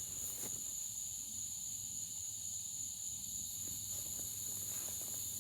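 Night insects, crickets, chirring in a steady unbroken high-pitched chorus, with a couple of faint knocks near the start.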